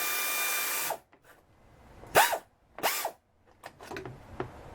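Pneumatic air shears cutting sheet-metal ductwork, running for about a second before stopping, then two short bursts as the trigger is pulsed.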